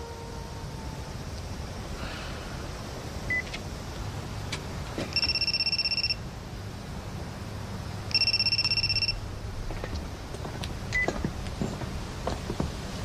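Mobile phone ringing: two short trilling electronic rings, each about a second long and about three seconds apart, over a low steady room hum.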